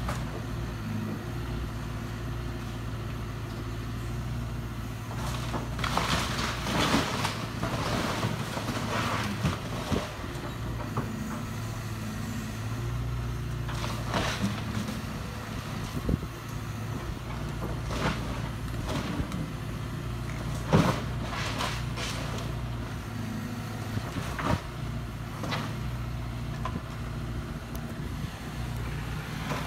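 Hyundai 140LC-9 hydraulic excavator's diesel engine running steadily, with scattered cracks and crunches of breaking wood as its bucket tears down and moves the shed.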